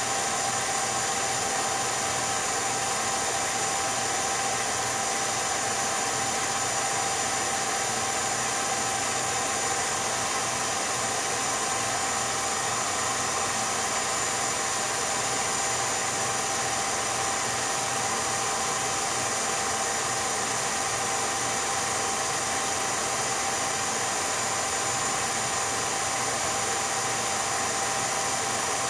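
Steady mechanical whir with a constant thin whine and hiss, unchanged across the picture's cuts: an 8mm film projector's motor and mechanism running while the silent home movie plays.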